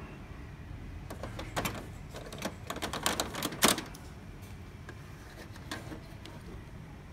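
Plastic clicks and knocks as an HP LaserJet 19A imaging drum is handled in the drum bay of an HP LaserJet M203dn printer. A quick run of clatter comes about a second in, with the loudest knock a little past the middle and a few lighter clicks later.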